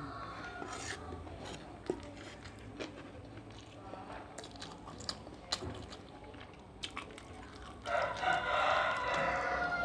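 A rooster crows once near the end, one long call that falls away at its close, over scattered light clicks like a spoon on a plate.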